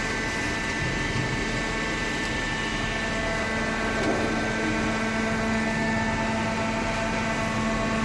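Hydraulic paper baler running: the motor and hydraulic pump make a steady hum and whine.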